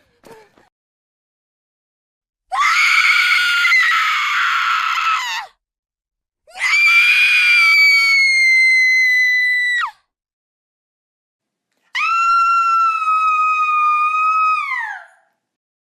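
A woman screaming: three long, high-pitched screams of about three seconds each, separated by silence, the last one dropping in pitch as it trails off.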